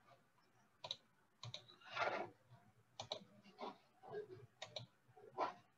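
Faint, scattered clicks and taps of a computer keyboard and mouse, some in quick pairs.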